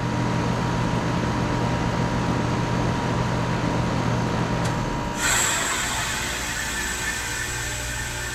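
Carrier Sentry heat pump outdoor unit running with a steady low hum, then a click just under five seconds in followed at once by a sudden loud rush of hissing refrigerant as the hum changes: the reversing valve shifting as the unit goes into defrost.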